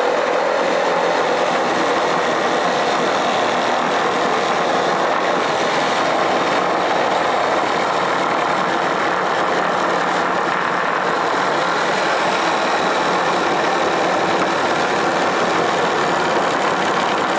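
Cordless reciprocating saw running at a steady speed as its blade cuts across a wooden beam, the motor and the blade's sawing through the wood keeping one unbroken level.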